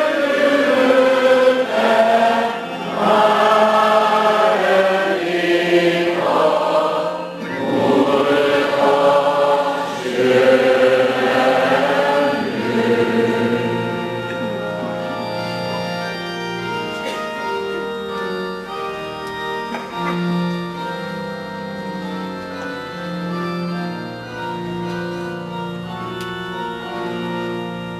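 A choir of voices singing a slow chant-like song, then from about 14 seconds in, an organ playing long held chords.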